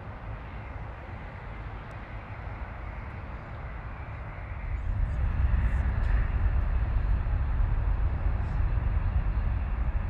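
Jet airliner engines running with a steady rumble that grows louder and deeper about five seconds in.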